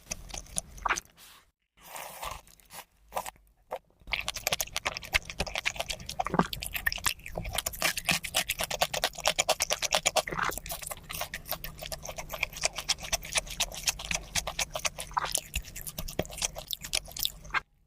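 Close-up chewing and crunching of seafood: a dense run of crisp crackles and clicks, broken by short pauses in the first few seconds, then almost continuous until it stops just before the end.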